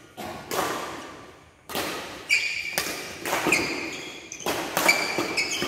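Badminton rally: rackets striking the shuttlecock with sharp, irregular pops, and sport shoes squeaking on the court mat, echoing in a large hall.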